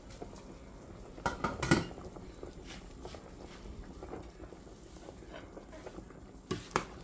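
A metal utensil clinking and knocking against a stainless steel cooking pot, in a cluster of sharp strokes about a second and a half in and again near the end, over the faint bubbling of soup at a rolling boil.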